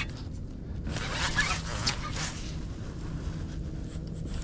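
A heavy conventional fishing reel working line under load from a hooked sturgeon, its scratchy mechanical noise strongest a second or two in, over a steady low rumble.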